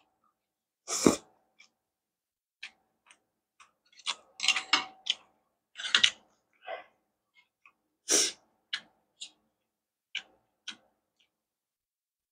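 Close-miked eating of stir-fried rice noodles: four loud, short, wet slurps and bites spread over several seconds, with small clicks of mouth and chopsticks between.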